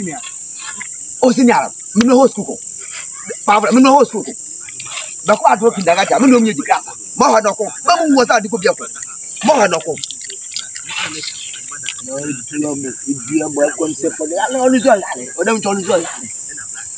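Steady high-pitched chirring of night insects, heard under men's voices talking in bursts.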